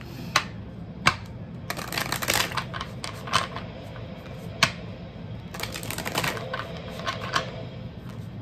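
Oracle cards being shuffled by hand: single sharp card snaps and stretches of rapid papery clatter.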